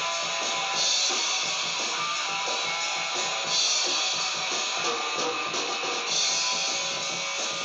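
A drum kit and an electric guitar playing rock together. It sounds thin, as if re-recorded from a TV speaker, with no deep bass and no top end.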